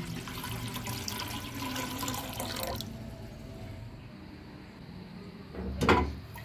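Water poured in a steady stream from a jug into a metal pressure cooker pot for about three seconds. Near the end, a short loud splash as raw beef chunks slide from a glass bowl into the water.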